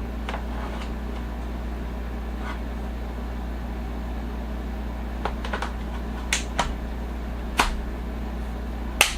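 Plastic wrist rest being slid and clicked onto a mechanical keyboard: a few faint handling knocks, then several sharp plastic clicks in the second half, the loudest near the end. A steady low hum runs underneath.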